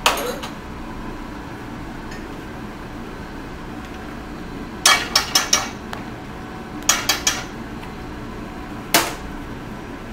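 A kitchen utensil tapping against metal cookware in short runs: a single knock at the start, two quick runs of about four taps around the middle, and one more knock near the end, over a steady background hum.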